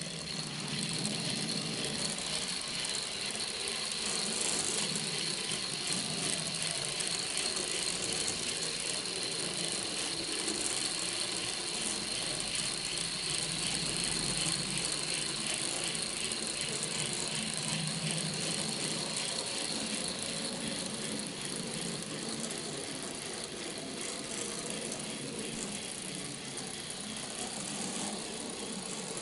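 O-scale model locomotive chassis running on track. Its small electric motor and open worm-gear drive give a steady whir with a fast, dense gear rattle and a thin high whine, easing a little as it moves away near the end.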